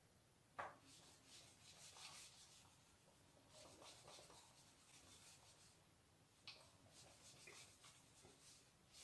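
Whiteboard eraser wiping marker writing off a whiteboard: faint, repeated rubbing strokes in two spells, each starting with a light tap about half a second in and again past six seconds.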